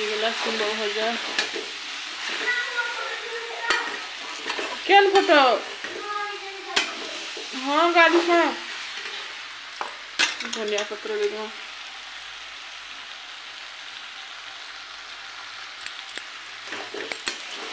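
Potato and flat-bean stir-fry sizzling in an aluminium kadai while a spatula stirs and scrapes it, with two louder pitched sweeps about five and eight seconds in and a few sharp clicks against the pan. The sizzle turns quieter and steadier for the last few seconds.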